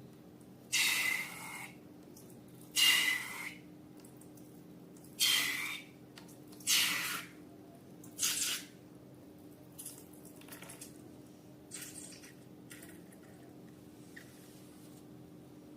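Slime being squeezed and worked by hand: five wet squelches about every one and a half to two seconds, then only soft little clicks and crackles.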